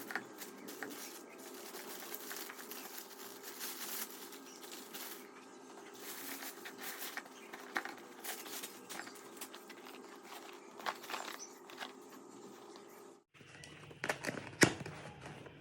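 Handling noises: scattered crinkles and light taps over a steady low hum, with the background hum changing abruptly about 13 seconds in.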